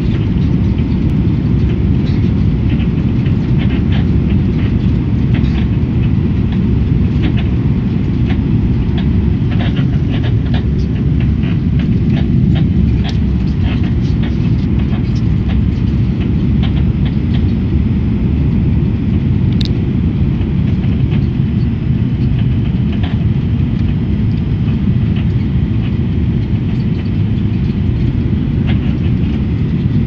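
Airliner cabin in turbulence: a loud, steady low rumble of engine and airflow noise, with the cabin wall panels creaking and clicking in quick, irregular ticks, thickest in the first half.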